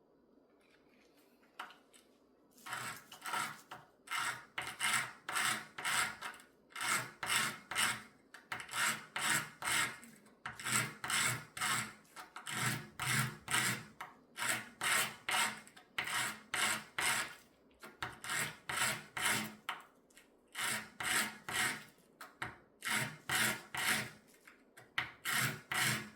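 A piece of jewelry being fine-sanded by hand with sandpaper: rhythmic back-and-forth rubbing strokes, about two a second, starting a couple of seconds in and broken by a few short pauses.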